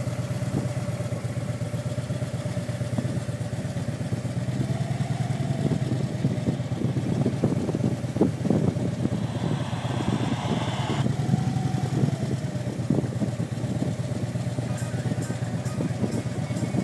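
Motorcycle engine running steadily while riding, a continuous low rumble with a wavering tone above it.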